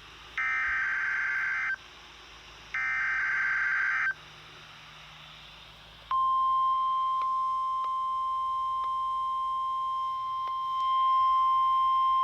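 The last two of the three SAME header data bursts from a NOAA Weather Radio test: short, even digital buzzes about a second and a half long with a second's gap between them. After a two-second pause the 1050 Hz NOAA Weather Radio warning alarm tone starts about six seconds in and holds as one steady high tone.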